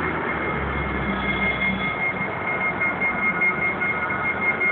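A steady high-pitched electronic tone, held without a break over a constant background hum, with a low rumble in the first two seconds.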